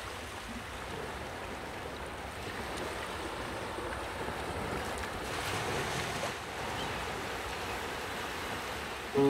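Sea waves washing in a steady rush, swelling a little about two-thirds of the way through. Piano music comes in at the very end.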